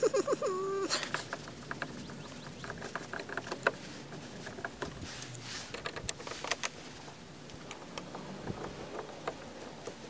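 Hand screwdriver working the screws out of an RV entry-door lock: a run of small metallic clicks and scrapes, scattered irregularly. A short pitched vocal sound comes right at the start.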